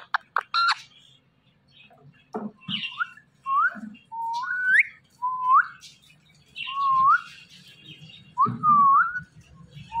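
A person whistling a short note that holds and then slides upward, repeated about seven times from about three seconds in, each lasting about half a second, to a pet Indian ringneck parakeet. A few faint chirps and clicks come before the whistles.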